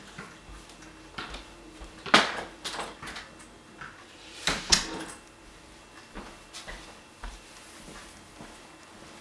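Interior door being opened and shut: a few sharp knocks, the loudest about two seconds in and again about four and a half seconds in, followed by a handful of softer knocks.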